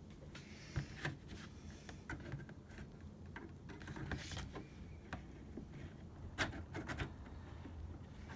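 Stainless steel tripod leg brackets being slid onto and tightened on a wire mesh soldering screen: scattered light metallic clicks, taps and rubbing at irregular intervals.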